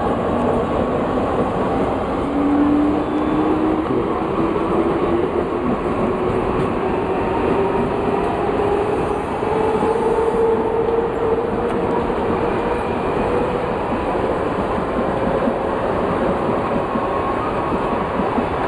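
Mumbai suburban electric local train pulling away from the station and gathering speed, its electric motor whine rising steadily in pitch over the first ten seconds or so and then levelling off, over the loud steady running noise of the train.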